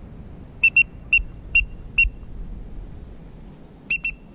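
Short, high whistle peeps of steady pitch from a duck whistle call blown to bring in ducks: five quick peeps, a pause of about two seconds, then three more.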